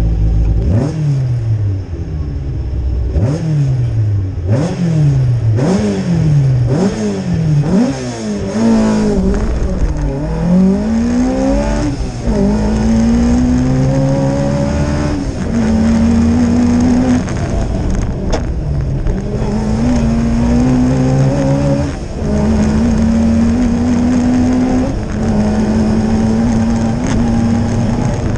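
Opel Ascona 400 rally car's four-cylinder engine driven hard on a rally stage, heard from inside the car. The revs rise and fall sharply several times in the first few seconds, then the engine pulls at high revs with a few short dips between gears.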